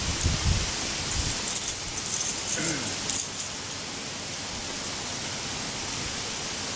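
Steady wind hiss with low buffeting on the microphone in the first half-second, while a large nylon parachute canopy billows; from about a second in to past three seconds come crisp rustling and light clinks as the canopy and its lines are handled.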